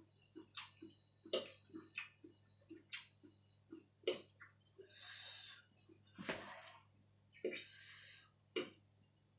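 Faint sounds of someone eating: a fork clicking against a plate now and then, soft steady chewing, and two short breathy sounds about halfway and near the end.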